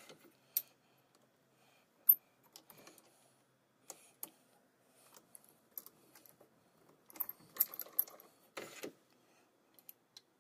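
Scattered light clicks and small metallic clinks of fountain-pen hardware being handled and pressed together, as the post cap is pressed onto the barrel using the lathe tailstock as a press. A cluster of clicks and a short rustling scrape come in the second half.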